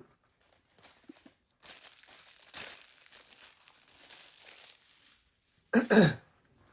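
Plastic packaging crinkling as it is handled for a few seconds, then a short loud cough.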